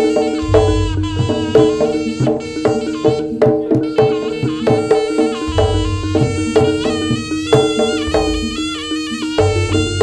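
Live Javanese jaranan gamelan music: a reed pipe playing a winding melody over a held drone, quick struck metal percussion and drumming, with deep low strokes swelling in a few times.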